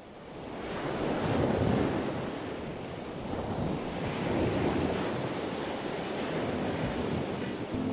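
Small waves washing in shallow sea water, swelling and easing, with wind buffeting the microphone.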